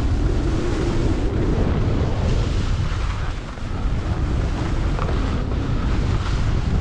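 Air rushing over the camera microphone as the skier moves downhill, a heavy low buffeting, with the hiss and scrape of skis turning over chopped-up, tracked snow.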